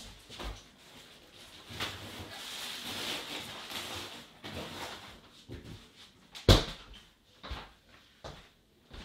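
Handling noises: a stretch of rustling, scattered small knocks, and one loud sharp knock about six and a half seconds in.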